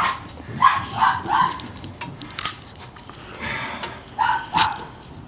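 A dog barking: a few short barks about a second in and two more about four seconds in.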